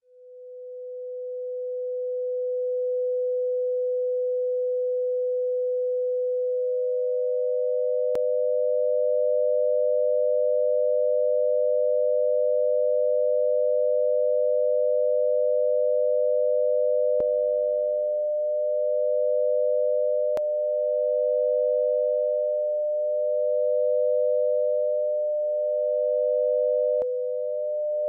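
Pure sine tones from the BeeOne software tone generator: a steady 500-hertz tone fades in, and about six seconds in a second, slightly higher tone near 600 hertz joins it. From about 18 seconds the lower tone swells and dips slowly, roughly every two and a half seconds, under amplitude modulation, with a few faint clicks.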